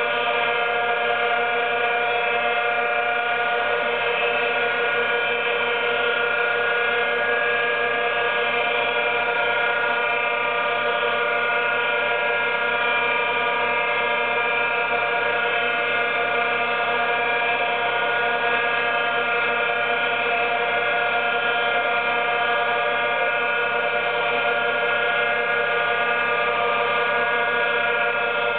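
Milling machine running with a cordless drill driving its table feed as a powerfeed: a steady, unchanging mechanical drone made of several held tones.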